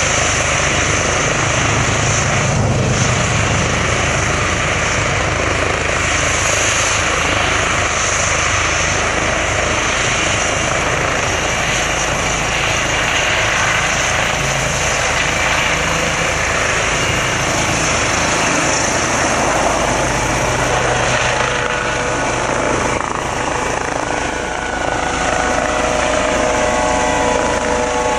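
Air-ambulance helicopter taking off, its turbine and rotor running loud and steady, with a high turbine whine over a low rotor rumble. In the last several seconds a few tones slide slowly down in pitch as it climbs away.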